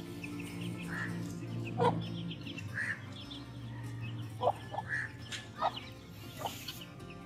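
Chicks cheeping and hens clucking in short scattered calls, over a steady background music track.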